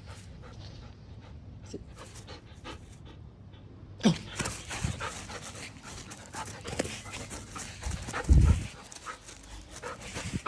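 Standard poodle panting. About four seconds in, a steady rustling noise joins as the dog starts running across the grass, with a loud low thump about eight seconds in.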